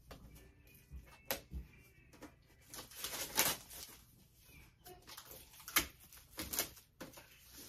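Hard plastic laptop shell case being handled and pressed onto a laptop, with plastic packaging rustling: irregular clicks and taps, and a longer rustle about three seconds in.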